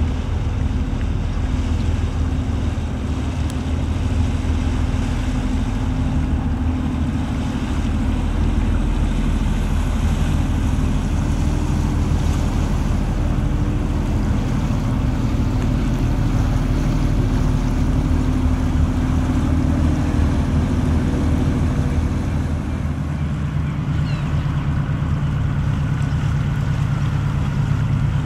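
Diesel engine of a fishing boat running steadily as it passes close by, with the wash of water around the hull. Near the end, a second, smaller fishing boat's engine comes in at a different pitch.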